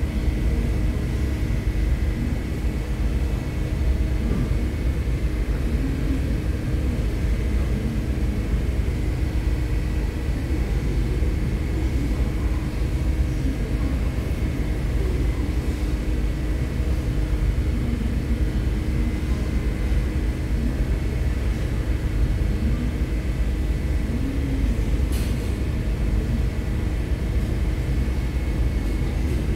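Steady low rumble of a ferry's engines, with a constant faint whine above it.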